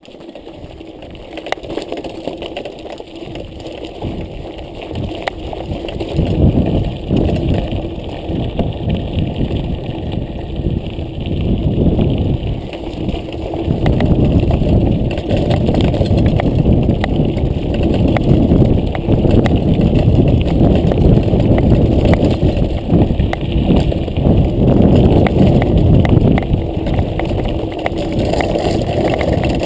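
Mountain bike rolling over a stony dirt track: a continuous rumble of tyres on gravel, mixed with the rattle of the bike over bumps and wind on the microphone. It gets louder from about six seconds in.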